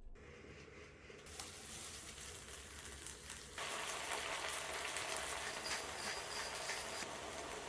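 Shrimp frying in hot oil in a pan: a steady sizzle with fine crackling that grows, then jumps louder about three and a half seconds in.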